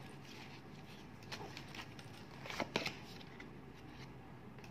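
Quiet room tone with a few soft, short clicks, two of them slightly louder and close together about two and a half seconds in.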